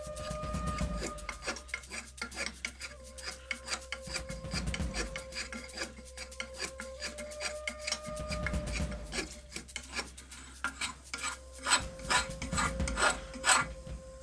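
Small metal hand plane shaving a wooden hatchet handle: a run of quick scraping strokes that grow louder and sharper near the end.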